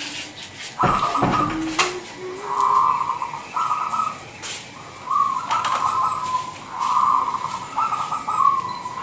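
Zebra dove (perkutut) singing: a string of short phrases of fast, pulsing coos, one after another with brief pauses. There is a brief low thump about a second in.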